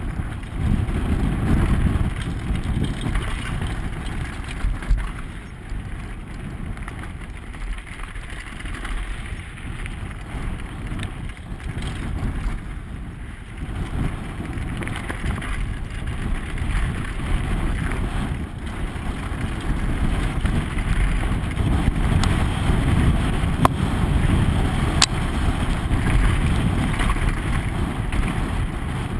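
Mountain bike descending fast on a loose gravel trail, heard from a helmet-mounted camera: a steady rumble of wind on the microphone mixed with tyres rolling over stones, with a few sharp knocks and clicks from the bike over the rough ground.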